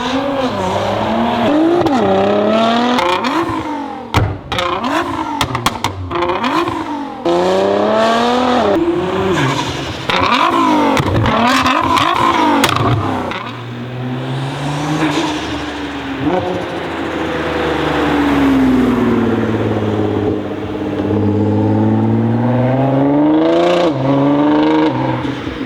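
Tuned Nissan GT-R R35's twin-turbo V6 revved hard in a string of quick blips, with bursts of exhaust pops and bangs about four and eleven seconds in. In the second half the engine pitch rises and falls more slowly over several seconds, with a last crackle near the end.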